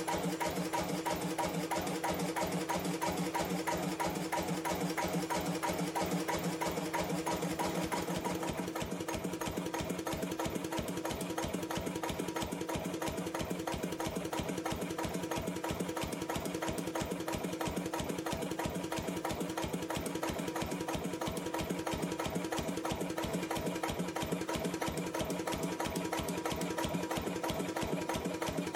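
1953 Lister CS 3.5 HP single-cylinder diesel stationary engine running steadily, an even, rapid mechanical clatter.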